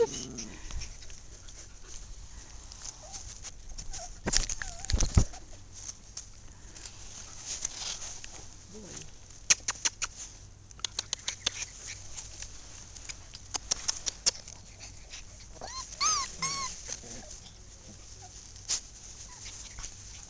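Five-week-old Polish Lowland Sheepdog puppies playing in the grass: small whimpers and yips, with a run of quick clicks and taps around the middle and a short high-pitched whine about three-quarters of the way through.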